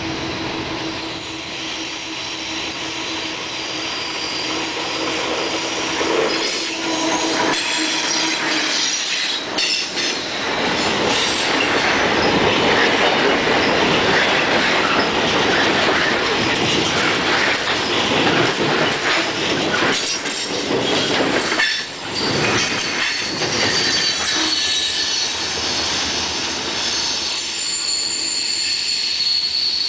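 Freight train with ALCO 251-engined diesel locomotives approaching and passing close by on a curve: the diesels rumble, then the cars roll past with wheels squealing through the curve and clicking over the rail. As the train moves away, high squeal and rail-singing tones are left.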